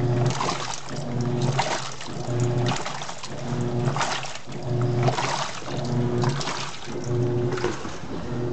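TECO 10 kg top-loading washing machine agitating: the motor hums in short pulses a little more than once a second, and water churns and splashes in the stainless tub with each stroke.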